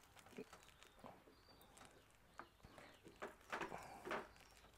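Near silence outdoors, with a few faint short clicks and knocks, a little stronger near the end, and faint bird chirps in the background.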